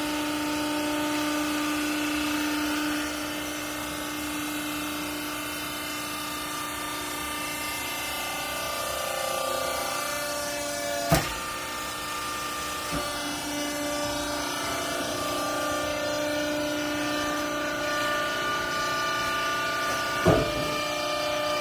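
Hydraulic clothes baler's motor and pump running with a steady whine made of several tones, shifting slightly in pitch as the load changes. Two sharp knocks come through it, one about halfway through and one near the end.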